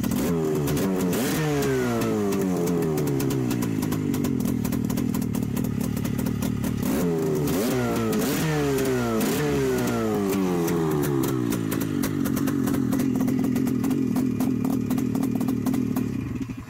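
Buran snowmobile two-stroke twin engine, warm and freshly rebuilt, running on a test stand. It is revved twice, the revs falling away after each blip. The engine is then switched off and cuts out just before the end.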